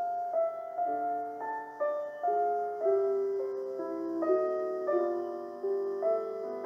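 Gentle background piano music: a slow melody of sustained notes, struck about two a second.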